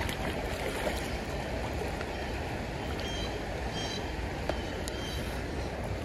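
Steady rush of flowing creek water, with a few faint, short high chirps a little past halfway.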